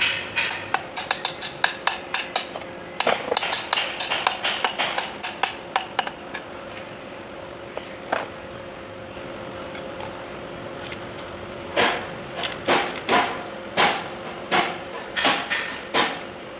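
Hammer tapping on the metal parts of a Kubota B1502 front axle gear case during assembly: a quick run of light taps, a pause, then about eight harder strikes near the end. A steady faint hum runs underneath.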